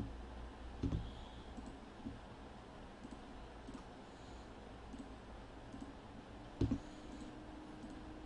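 Computer mouse clicking a few times, with a quick double click about two-thirds of the way in, over a faint steady hum.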